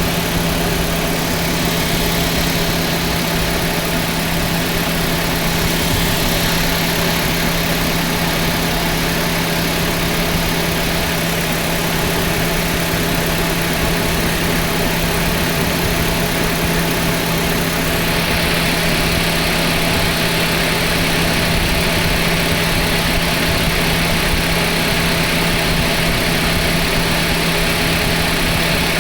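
Car engine idling steadily with the air conditioning running: an even hum with one constant low tone over a broad hiss, the hiss shifting slightly a little past the middle.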